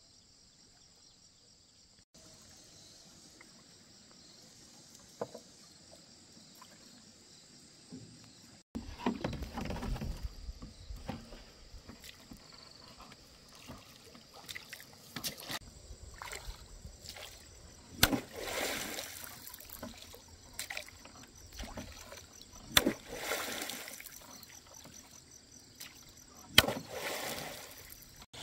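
Bamboo oars pulling through lake water from a small rowboat: a splash and slosh with each stroke, and sharp wooden knocks as the poles work against the boat, about every four seconds near the end. A steady high insect chirring runs underneath and is heard alone for the first several seconds.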